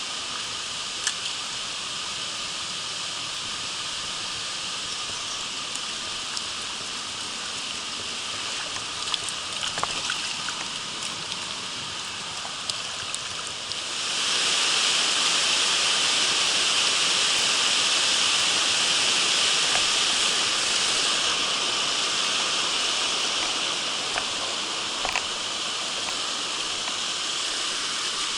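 Mountain headwater stream rushing over rocks: a steady hiss of running water that grows louder about halfway through, with a few faint ticks.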